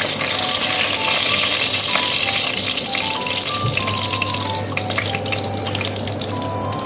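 Food sizzling and crackling in hot oil in a frying pan, with faint background music underneath.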